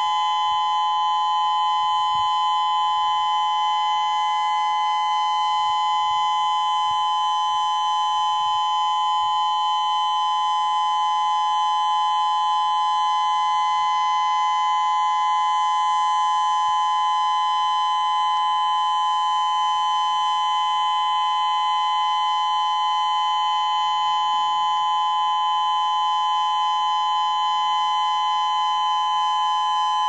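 Federal Signal Modulator 6024 electronic outdoor warning siren sounding a loud steady tone, two close pitches held without any rise or fall.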